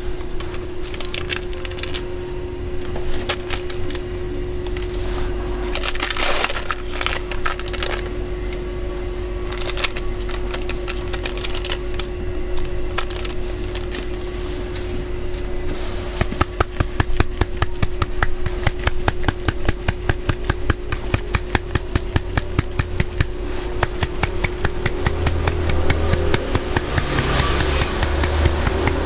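Utensils at work in egg-bread preparation: scattered clatter and knocks, then about halfway through a rapid, even tapping of about five strokes a second that goes on for some twelve seconds, over a steady hum.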